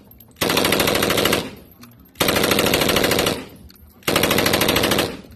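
Bipod-mounted machine gun firing three bursts of automatic fire, each about a second long, with short pauses between them.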